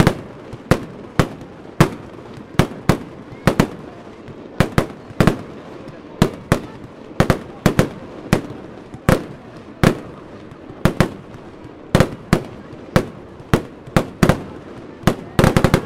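Fireworks display: aerial shells bursting in a steady volley of sharp bangs, about two a second, with a rapid cluster of bangs near the end.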